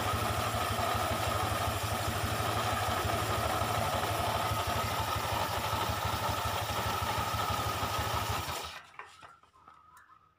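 Honda Vario scooter engine idling with its CVT open, a rough grinding noise coming from the rear pulley, which the mechanic suspects is a worn pulley bearing. The engine is switched off about eight and a half seconds in and stops, leaving a few faint clicks.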